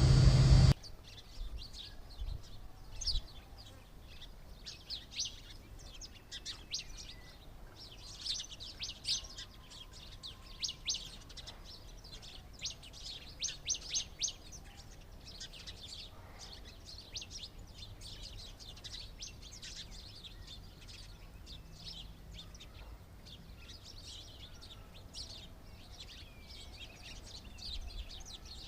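Small birds chirping: many short, high chirps in quick runs, busiest in the middle and thinning out later. A much louder sound carried over from before cuts off suddenly under a second in.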